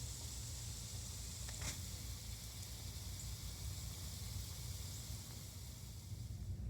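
Sleet and freezing rain pelting the ground as a steady high hiss with a few faint ticks, over a low steady hum. The hiss cuts off suddenly at the very end.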